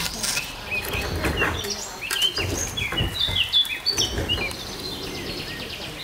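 Songbirds chirping in short high calls, with a rapid buzzy trill about five seconds in. Sharp crackles and a few dull knocks are scattered through the middle and are the loudest sounds.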